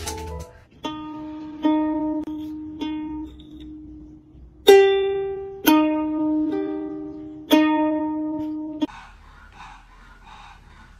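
Ukulele strings plucked one note at a time by a cat's paw: about nine single ringing notes at uneven intervals, each dying away, stopping about nine seconds in.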